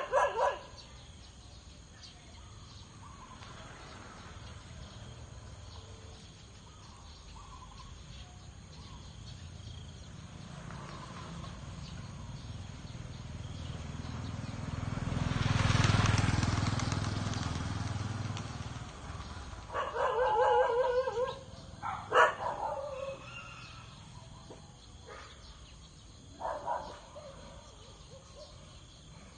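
Outdoor rural ambience. A passing vehicle swells and fades about halfway through, followed by a few short calls and a sharp click near the end.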